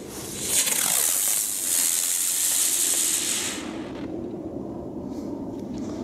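Lesli Night Navigator flying spinner firework hissing loudly as its propellant drives it up into the air, starting about half a second in and stopping suddenly after about three seconds.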